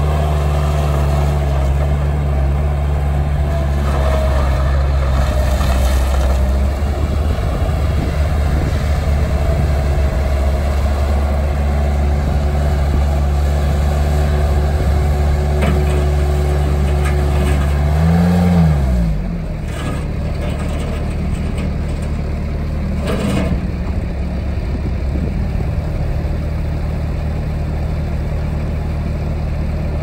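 Bobcat 753 skid steer's diesel engine running steadily, then briefly rising in pitch about 18 seconds in before dropping back and settling lower and a little quieter, with a few short clunks afterwards.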